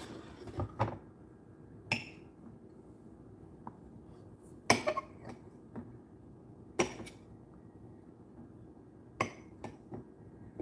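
Light clinks and knocks of dishes and utensils: about eight short, sharp taps at uneven intervals, the loudest near the middle.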